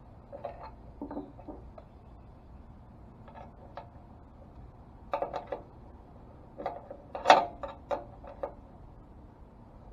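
Metal clicks and clinks of a 10 mm open-end wrench being worked around a small nut on a tailgate-assist shock absorber's mount, coming in short clusters as the wrench is repositioned for each bit of a turn, the loudest a little past the middle.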